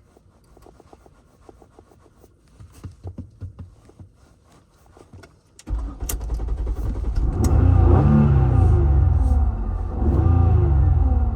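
Car engine cranking over on the starter for several seconds in the cold, a hard start, then catching suddenly about six seconds in and running loud. It is revved up and back down twice.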